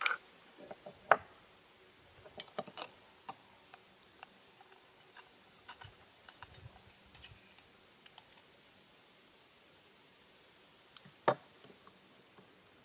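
Scattered light clicks and clinks of a backpacking stove and its fuel canister being handled on a wooden table as the MSR Pocket Rocket is fitted onto the canister. Two sharper knocks stand out, about a second in and near the end.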